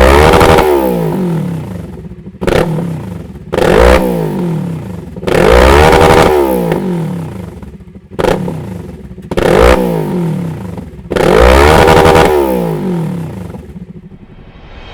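Kawasaki Z650's parallel-twin engine revved repeatedly at standstill through its exhaust: about seven throttle blips, some short and some held for a second or two, each climbing in pitch and falling back toward idle.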